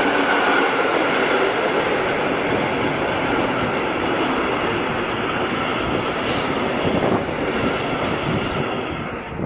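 Long freight train of container and tank-container wagons passing close by at speed, its wheels running steadily over the rails; the sound falls away near the end as the last wagon goes by.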